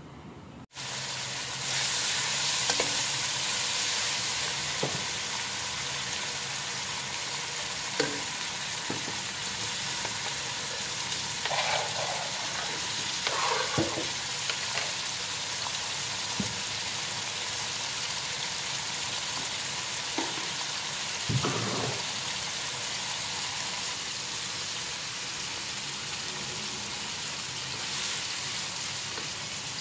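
Food sizzling steadily in hot oil as chopped liver, onion, tomato and spice paste are stirred in a pot with a wooden spatula. The sizzle starts about a second in, and the spatula knocks against the pot now and then.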